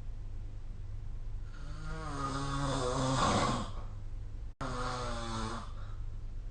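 A sleeping person snoring: a long snore starting about a second and a half in, then a shorter one just before the end, each a pitched sound that sinks slightly in pitch. A steady low hum lies underneath.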